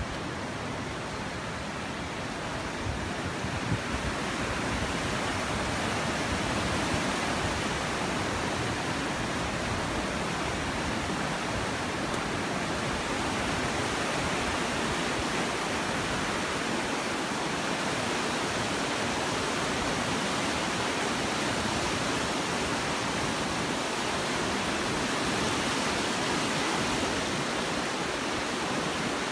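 Swollen, muddy floodwater rushing and churning through rapids as a steady, unbroken wash of noise, growing louder about four seconds in.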